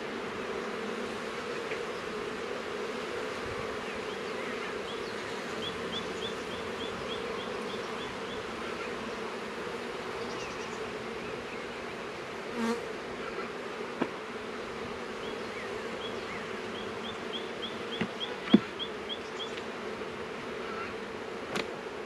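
Honeybees buzzing steadily around an opened hive as its comb frames are lifted out. A few sharp wooden knocks come in the second half, one much louder than the rest, and two runs of quick, high chirps sound over the hum.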